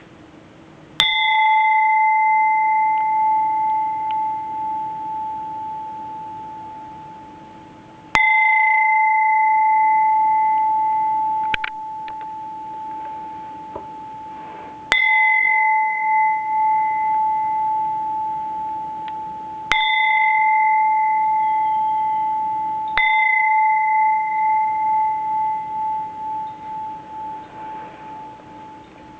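Medium-size 19th-century Burmese temple bell struck five times, several seconds apart. Each strike rings on in one clear main tone with fainter higher overtones and dies away slowly with a pulsing waver.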